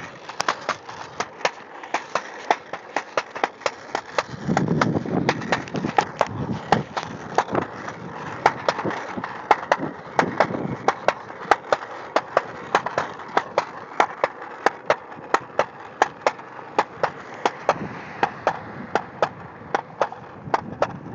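Small hard wheels of a ride-on board rolling on a concrete sidewalk: a steady rolling rumble with sharp clicks about two to three times a second as the wheels cross the sidewalk seams.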